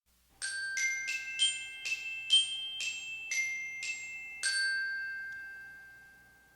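A short glockenspiel-like chime melody of about nine struck, bell-like notes, the last note ringing on and fading away.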